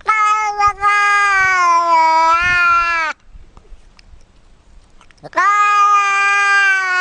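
Grey cat yowling: one long drawn-out meow of about three seconds, with a brief break near its start, then a second long one beginning about five seconds in. Each holds a steady pitch and drops at the end.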